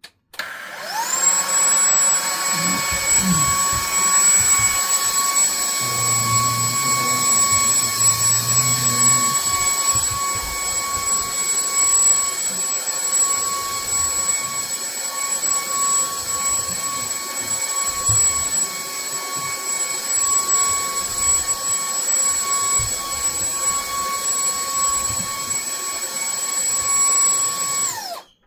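Day Plus YC777 cordless handheld vacuum cleaner running: its motor spins up with a quick rising whine at the start, holds a steady high-pitched whine, then winds down and stops near the end.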